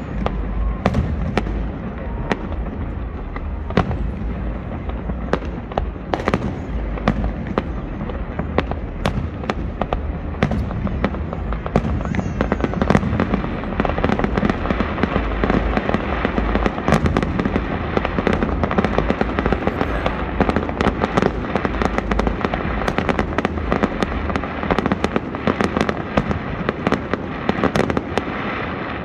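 Aerial fireworks shells bursting in quick succession: many sharp bangs and crackles overlapping over a constant low rumble, growing denser about halfway through.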